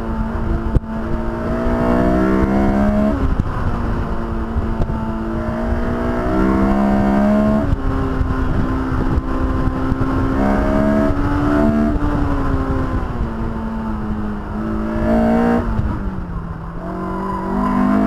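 2002 Honda S2000's 2.0-litre four-cylinder engine driven hard, its note repeatedly climbing and falling as the revs rise and drop, heard from inside the open-top cabin with wind rush underneath.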